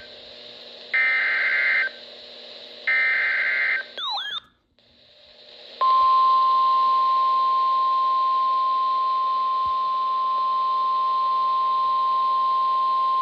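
Emergency Alert System SAME header: two one-second bursts of warbling digital data screech, a second apart. Then a brief gliding chirp, and from about six seconds in the steady single 1050 Hz warning alarm tone of NOAA Weather Radio, signalling a severe thunderstorm warning.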